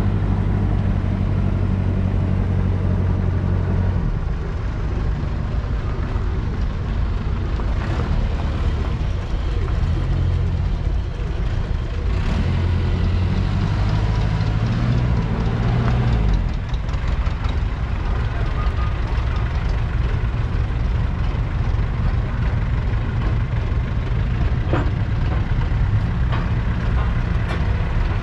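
A 1938 Fordson Model N tractor's 4.4-litre four-cylinder petrol/TVO engine running steadily, its note shifting about four seconds in and again around sixteen seconds in.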